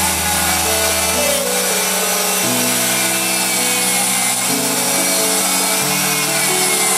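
Abrasive cut-off wheel grinding steadily through a motor armature's steel core and windings, with background music playing over it.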